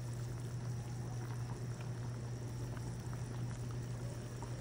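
Pot of sinigang broth simmering gently over low heat, small bubbles popping softly, over a steady low hum.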